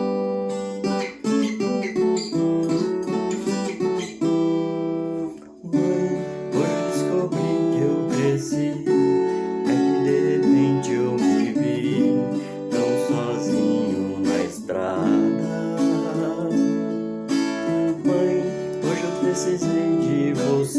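Viola caipira playing an instrumental introduction: a plucked melody over strummed chords, with a brief pause about five seconds in.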